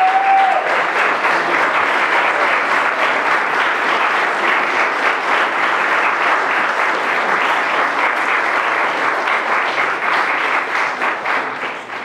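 Crowd applauding steadily with dense clapping, dying away near the end.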